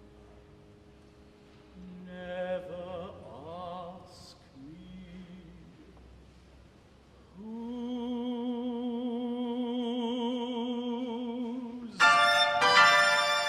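Classical chamber music for string quartet and piano: a soft, slow passage of held notes with vibrato that swells to a steady sustained note, then the strings come in loudly and forcefully about twelve seconds in.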